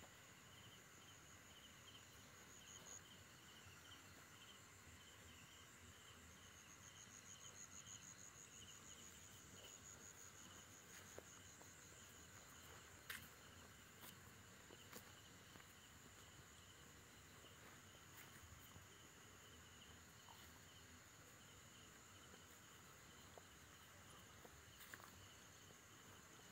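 Faint chorus of crickets and other night insects: a steady, high pulsing trill with a second, lower pulsing trill beneath it. A few faint clicks sound from about halfway through.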